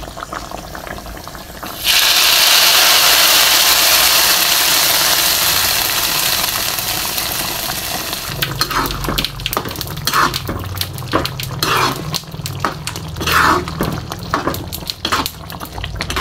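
A hot-oil tadka of spices and curry leaves is poured onto a gravy okra curry: a sudden loud sizzle about two seconds in that slowly dies away. Then a ladle stirs and scrapes the metal kadai in short strokes.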